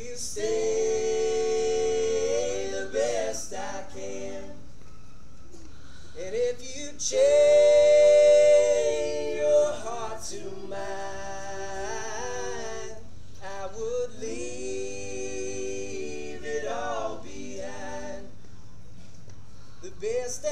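Four men singing a cappella in harmony, holding long chords in phrases separated by short breaks, loudest about a third of the way in.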